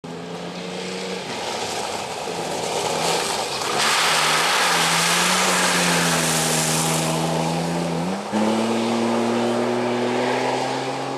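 Off-road 4x4 engines revving hard over a dirt track, the pitch climbing slowly and then stepping up sharply about eight seconds in. A loud hiss of spraying dirt and mud runs over the engine through the middle of the stretch.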